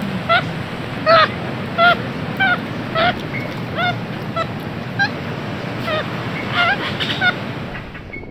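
White-faced capuchin monkeys calling: a run of short, repeated calls, each bending up and then down in pitch, about one to two a second over a steady wash of background noise. The sound cuts off suddenly near the end.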